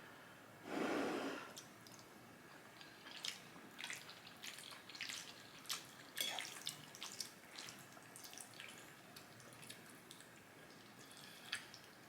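Close-miked wet chewing and smacking mouth clicks of someone eating, with a short breathy noise about a second in.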